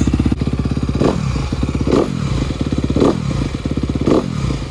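Honda CRF250R's single-cylinder four-stroke engine running on its first start-up as a brand-new bike, revved briefly four times about a second apart.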